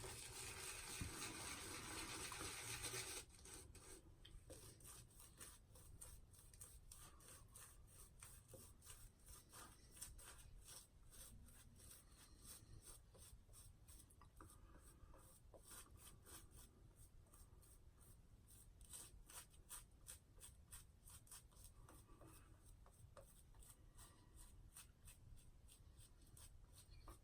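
Water runs briefly for about three seconds, then faint, scratchy rubbing of wet shaving follows as lather is worked and the face is shaved.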